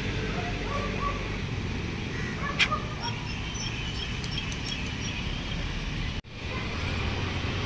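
Outdoor ambience: a steady low background rumble with a few faint, short bird chirps. A single click comes a little over two and a half seconds in, and the sound drops out briefly a little past six seconds.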